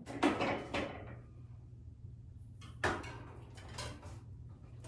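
Knocks and clatter of a mountain bike and its parts being handled during assembly: a few clicks in the first second, a single sharper knock about three seconds in, then fainter clicks, over a steady low hum.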